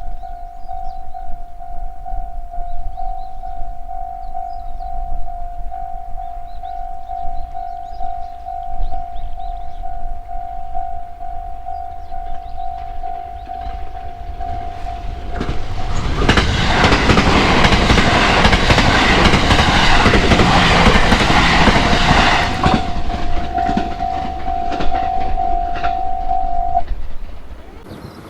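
Japanese railway level-crossing warning bell ringing its repeated "kan-kan" tone while a train passes through the crossing. The train is loudest for about six seconds, starting about halfway in. The bell keeps ringing after the train has gone and stops shortly before the end.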